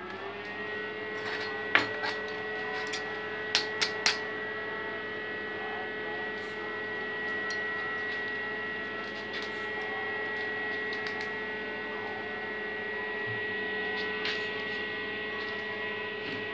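Homemade spot welder with a 9 kW AC transformer humming steadily once switched on, its pitch settling within the first moment. A few sharp clicks come about two to four seconds in.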